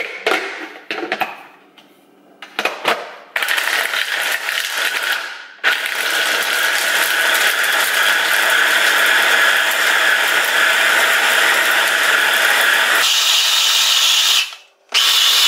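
Ninja food processor's motor running in bursts as it chops a chicken meatball mixture with a few ice cubes: a short run, a brief stop, a long run of about eight seconds, then a stop and a restart near the end. A few knocks and clatters come first, as the ice goes in and the motor head is fitted.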